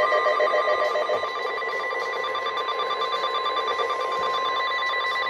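NOAA Weather Radio 1050 Hz warning alarm tone: one steady, continuous beep heard over radio hiss, the alert signal that comes before a severe thunderstorm warning message. A fainter rapid pulsing runs beneath it.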